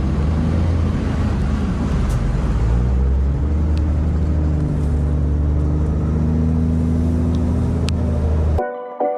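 Heavy truck's diesel engine running with a steady low rumble. It cuts off abruptly near the end, and background music with distinct notes takes over.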